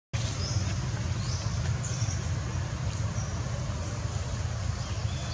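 Steady low outdoor rumble with a few faint, short, high chirps scattered through it.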